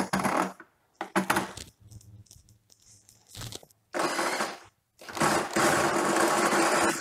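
Handheld electric drill spinning a 3D-printed Oldham coupling and its steel shafts in several short bursts about a second apart, then running steadily from about five seconds in. The coupling keeps transmitting the rotation between two offset parallel shafts at speed.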